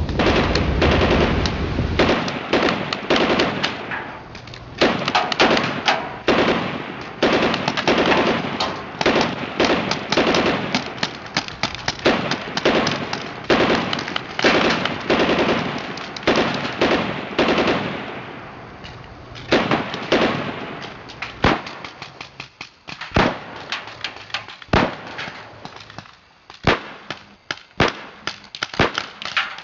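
A rapid, irregular string of sharp cracks and pops, densely packed at first and thinning to scattered single cracks in the last third.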